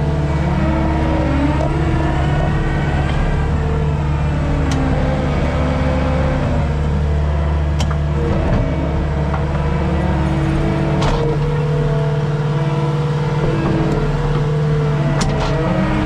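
Skid steer's engine running steadily while working, with a higher whine that rises and falls and a few sharp knocks, about four in all.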